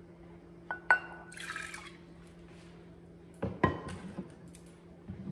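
Half a cup of water poured from a glass measuring cup into a saucepan: a clink of glass with a short ring, then a brief splash of pouring. Two more knocks with a ring about three and a half seconds in.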